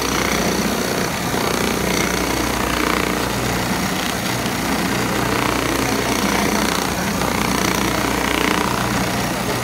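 Chaocheng automatic cap visor sewing machine running steadily, its needle stitching around a cap visor held in the moving work clamp.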